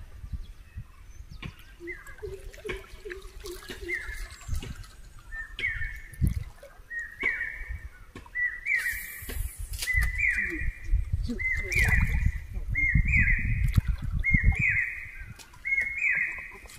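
A bird calling over and over: a short whistled note, repeated about once a second and coming faster toward the end, over low knocks and rumble from the boat.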